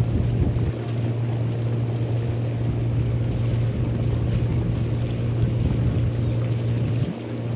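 Motorboat engine running at a steady speed, a constant low drone with a steady hiss over it.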